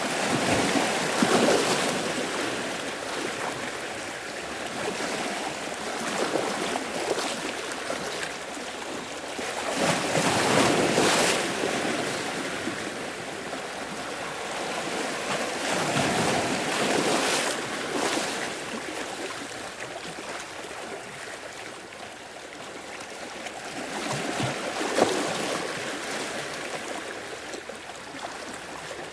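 Sea waves washing ashore: four surges that swell and fade over a few seconds each, with a steady surf hiss between them.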